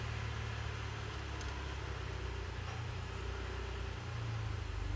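A steady low mechanical hum, swelling slightly a little after four seconds in.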